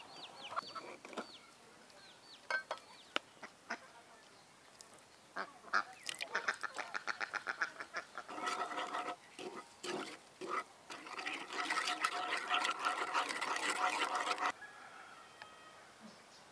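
Farm poultry calling in runs of rapid, harsh repeated calls. The loudest and longest run comes in the second half and stops suddenly.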